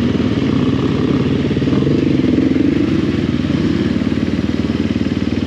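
Off-road enduro motorcycle engine running at low, steady revs with a fast even pulse, the pitch lifting slightly around the middle.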